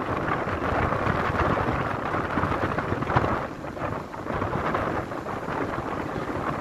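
Strong sea wind buffeting the microphone in uneven rumbling gusts, over the steady wash of small waves breaking in the shallows.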